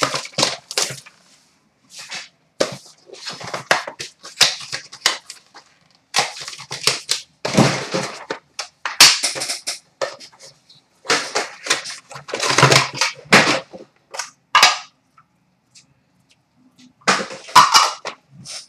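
Hands tearing open a 2012-13 Panini Draft Prospects hockey card box and its plastic wrap: rapid crackling, crinkling and tearing in irregular bursts, with a short pause near the end.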